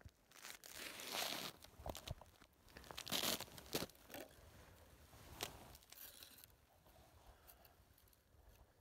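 Rustling and crunching from clothing and gear being handled at an ice-fishing hole. It comes in irregular bursts, the loudest about a second in and again about three seconds in, with smaller ones after.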